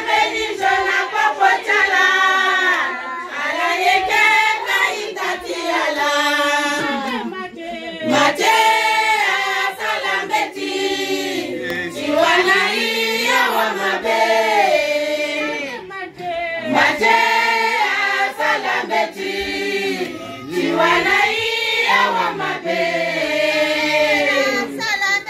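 A group of women singing together in chorus, phrase after phrase with brief breaks between.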